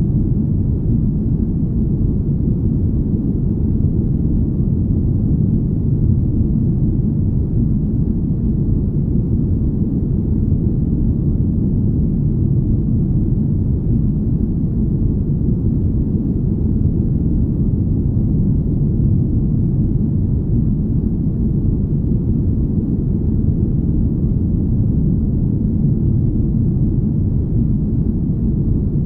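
Deep, smooth, steady rumble of low noise, all its weight in the bass with almost nothing high: an ambient spaceship-hum sleep sound.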